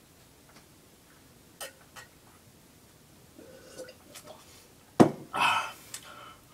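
A person gulping milk from a glass with a few faint swallowing clicks, then a sharp clink about five seconds in as the glass is set down, followed by a short breathy exhale.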